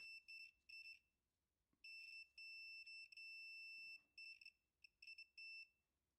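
Digital clamp meter's continuity beeper giving a faint high beep that keeps cutting in and out as the cable is flexed: short beeps, a few longer stretches in the middle, then short beeps again. The broken-up beeping shows an intermittent break in the current probe cable's conductor where the wire passes through the housing, where the strain relief is almost non-existent.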